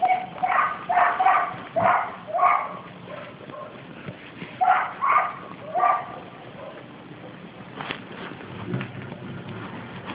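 A series of short, high animal calls in two bursts, about six and then three, followed near the end by a single knock.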